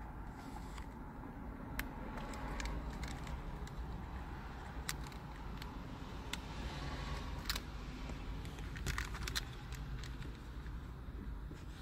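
Steady low rumble inside a parked car, with a scattering of short, light clicks and taps.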